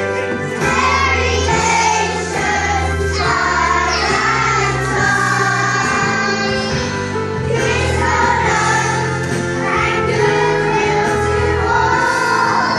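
A group of young children singing together, with instrumental accompaniment: held low bass notes that change every second or two.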